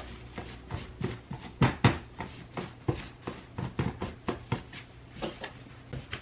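A quick, irregular series of light knocks and clicks from household objects being handled and set down, several a second, loudest a little under two seconds in.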